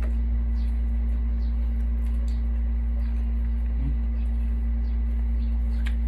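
A steady low hum, with a fainter steady tone above it, runs throughout. Over it come small faint clicks of eating at the table, and a sharper utensil click against the food just before the end.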